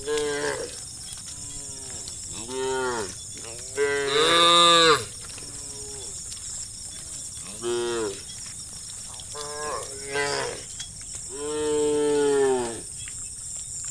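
Cattle mooing over and over, about six separate moos whose pitch rises and falls. The loudest comes about four seconds in and a long drawn-out one near the end. A steady high-pitched hiss runs underneath.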